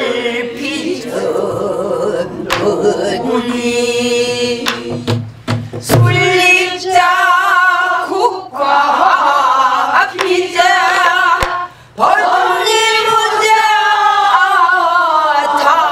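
A group of mostly women's voices singing a Korean folk song in unison, with long held notes and wide vibrato. A woman's voice leads, and a few sharp strokes on a buk barrel drum sound under the singing.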